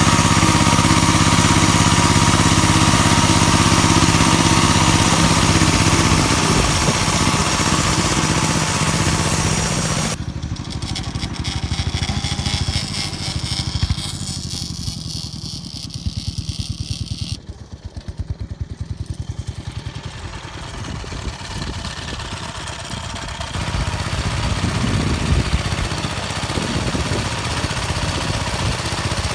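Engine of a homemade motor-tractor converted from a walk-behind tractor, running steadily. About ten seconds in it drops to a slower, quieter run with each firing stroke distinct, and it picks up again near the end.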